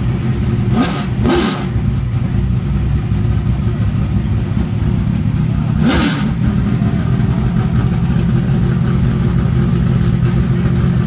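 Trans Am Series TA-class Corvette race car's 850-hp V8 idling loud and steady, with the throttle blipped three times: two quick revs about a second in and another about six seconds in.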